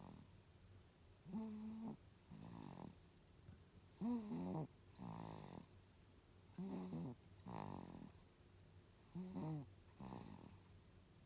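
A three-month-old baby snoring in his sleep. There are four snoring breaths about two and a half seconds apart, each a short pitched snore followed by a softer second one.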